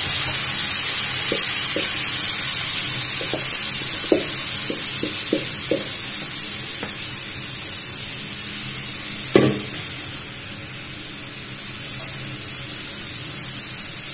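Sliced zucchini, carrots and bell peppers sizzling loudly as they land in a hot frying pan, the sizzle slowly dying down. A wooden spatula scraping them out of the bowl knocks lightly against the bowl and pan several times a few seconds in, with one louder knock about nine seconds in.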